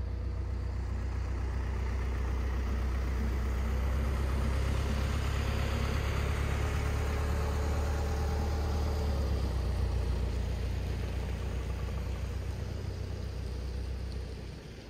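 Vehicles driving past, among them a flatbed tow truck: a steady low engine rumble that builds to its loudest through the middle and fades near the end.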